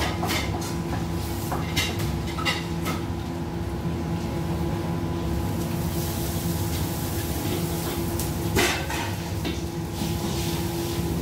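Metal ladle clinking and scraping against a wok, several quick knocks in the first three seconds and one louder knock near the end, over the steady low rumble of a gas wok burner. A hiss rises about halfway through.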